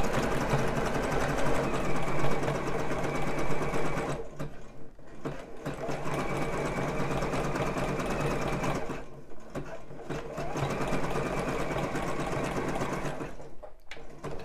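Juki sewing machine running a wide zigzag stitch at a fast, even needle rhythm, in three spells of a few seconds with short pauses between, stopping shortly before the end.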